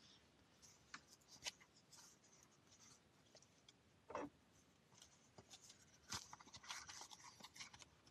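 Faint scraping, rustling and light clicks of a black product box being handled and opened, with a soft knock about four seconds in and busier rustling near the end.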